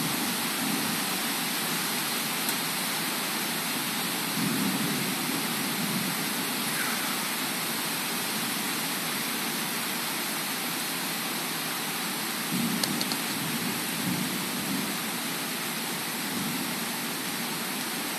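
Heavy rain falling steadily in a thunderstorm, a dense even hiss, with low rumbles swelling about four seconds in and again around twelve to fifteen seconds in.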